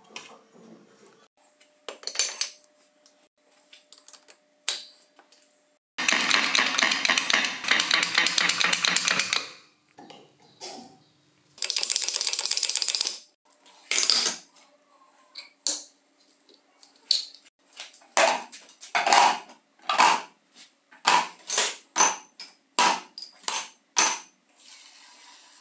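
Rusty steel gears and shafts clinking as they are handled in a steel tray, then a power driver rattling in two bursts as it works on a gear clamped in a vise. After that comes a quick series of separate knocks as metal gears and shafts are dropped one by one into a plastic jar.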